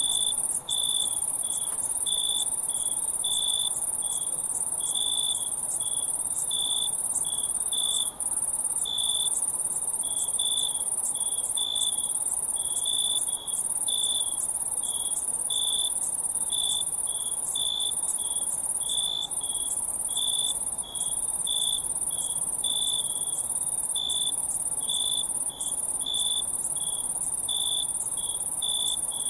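Crickets chirping at night: a steady high-pitched trill, with a lower, pulsing chirp repeating a few times a second.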